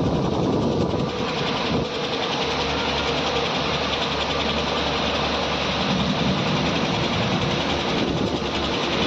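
Fierce storm wind and heavy rain, a steady rushing noise with a low rumble of wind buffeting the microphone.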